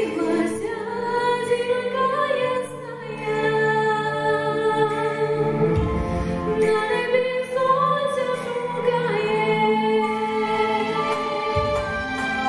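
A woman singing a Ukrainian song into a microphone, amplified through a hall's sound system over an instrumental backing, with long held notes.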